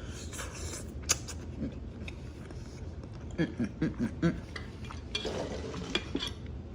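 A person eating at close range: two sharp clicks about a second in, then a quick run of five short low sounds around three and a half seconds in, and a rustling noise near the end.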